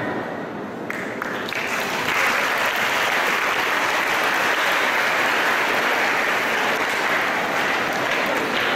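Audience applauding at the end of a choir's song. The clapping builds over the first two seconds, then holds steady.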